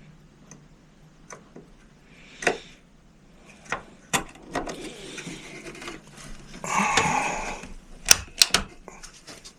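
Clicks and knocks of a desktop RAM module being handled and pressed into its motherboard slot, with about a second of rustling or scraping in the middle. Near the end come three quick, sharp clicks as the module seats and the slot's clips snap shut.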